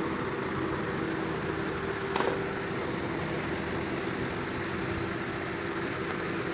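Steady machine hum with a constant tone, and a single click a little over two seconds in.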